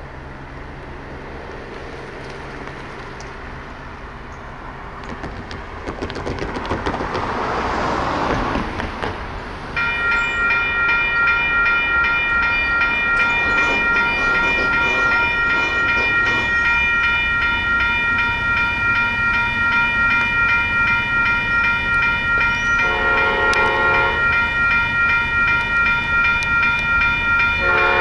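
Railroad crossing bell ringing steadily, starting about ten seconds in as the gates come down, after a road vehicle passes the crossing. Near the end the approaching Amtrak San Joaquins train sounds its horn twice: one blast of about a second and a half, then a second that is still going at the end. The horn is a Nathan P5 on cab car 8306.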